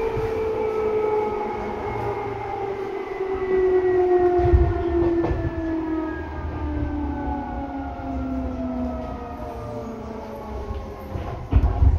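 Seibu 2000 series electric train running, its traction motors whining in several tones that fall steadily in pitch as the train slows, over the low rumble of the car. There is a heavy thump about four and a half seconds in and another near the end.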